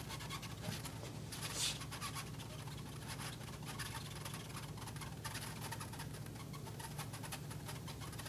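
Marker writing on a glass lightboard: faint, quick scratches and squeaks of the pen strokes, one after another.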